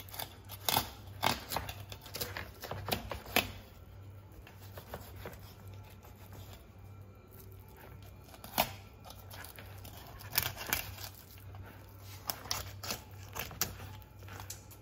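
Knife filleting a whole tuna on a plastic cutting board: irregular soft clicks, scrapes and wet tearing as the blade cuts the red flesh away from the bone and skin, over a steady low hum.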